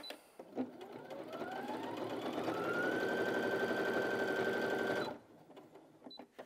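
Brother Innov-is A65 sewing machine stitching a straight seam through two layers of denim: the motor whine rises as it speeds up over a couple of seconds, then runs steady under the rapid needle strokes and stops abruptly about five seconds in. A short beep follows near the end as a button on the machine is pressed.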